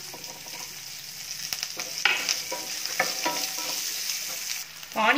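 Chopped shallots frying in hot sesame oil in a kadai, a steady sizzle. A spatula stirs and scrapes the pan several times.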